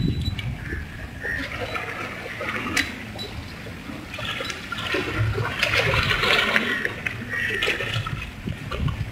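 Water splashing and sloshing as a hooked barracuda thrashes at the surface, in uneven surges that are strongest about five to seven seconds in.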